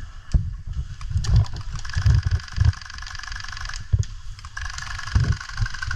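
Two long bursts of rapid, evenly spaced clicking from electric airsoft guns firing, one about two seconds in and another starting near the end. Irregular low thumps and rustling from the player moving with the camera run underneath.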